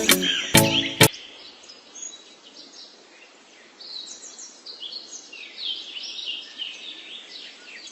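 Background music breaks off about a second in, leaving birds chirping in quick short calls over a light hiss, growing busier about halfway through.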